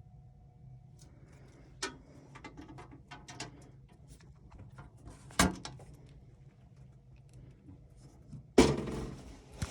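Several sharp knocks and clunks over a low steady hum, the loudest near the end, followed by a brief rustle.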